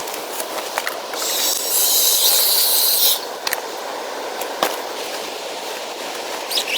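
Steady outdoor noise with scattered sharp crackles, and a loud high hiss lasting about two seconds, starting about a second in.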